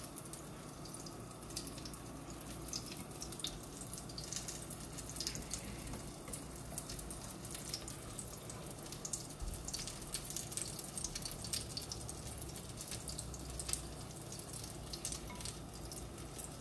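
Light handling sounds of thin beef slices being dredged in frying flour and dipped in beaten egg with chopsticks: faint scattered clicks and taps over a steady low hum.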